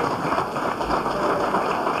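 Audience applauding, an even clatter of many hands clapping.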